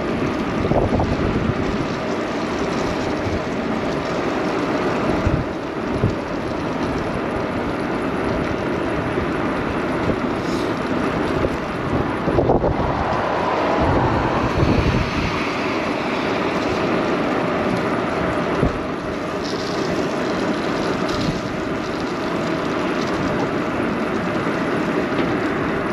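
Steady wind rushing over the microphone of a handlebar camera on an electric bike in motion, mixed with road and traffic noise, swelling briefly about halfway through.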